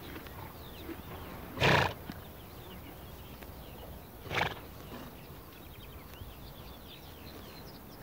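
Przewalski's horses snorting: two short, breathy snorts, a louder one about two seconds in and a weaker one a little past halfway.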